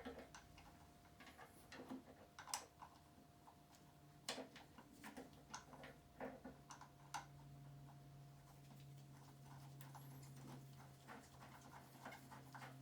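Very quiet workshop sound: sparse light clicks and taps of parts being handled during the refitting of a motorcycle fuel tank, over a faint steady hum.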